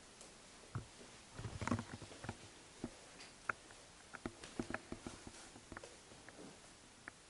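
Soft, irregular taps and knocks from a handheld camera being carried through a room, mixed with footsteps on a wooden floor. A denser cluster of knocks comes about a second and a half in.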